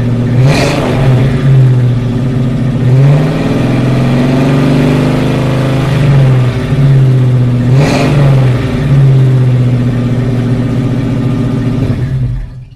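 Muscle car engine revving up and down over and over with heavy bass, with a sharp crack twice. It stops suddenly near the end.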